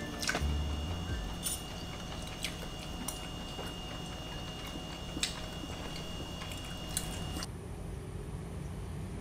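Quiet eating sounds: a few light clicks of a metal fork and spoon against china plates, with faint chewing, over a steady low room hiss.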